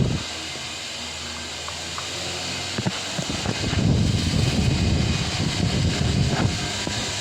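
Delta Gold 50 cm wall fan running with a steady motor hum, its air blowing on the microphone in low gusts, strongest from about three seconds in until about six and a half seconds.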